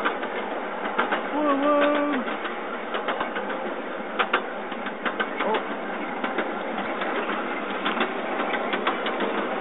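Miniature ride-on park train running along its track: a steady rattling clatter with many irregular sharp clicks.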